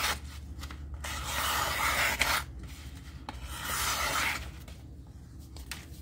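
A Rough Ryder RR2167 lockback's 420A stainless clip-point blade slicing through a paper mailer as a sharpness test of the factory edge. There is a short cut at the start, then two longer cuts about a second in and at three and a half seconds, with a few small clicks.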